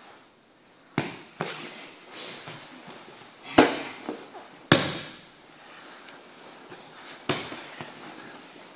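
Thuds and slaps of bodies and hands hitting foam martial-arts mats as a partner is thrown down and pinned in kneeling aikido techniques. Five sharp impacts: two close together about a second in, the two loudest in the middle, and one more near the end.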